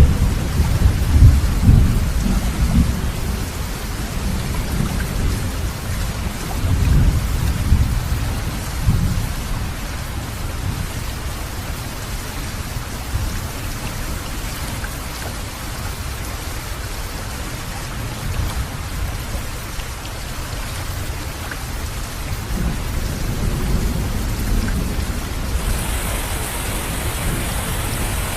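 Steady rain falling, with rolls of thunder rumbling: loud ones at the start and again about seven seconds in, and a fainter one later. Near the end the hiss of the rain grows brighter.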